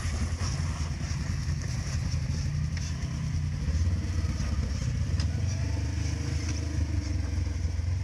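Polaris side-by-side UTV engine running at low trail speed, a steady low drone that picks up a little about halfway through, with a few light ticks from rocks on the trail.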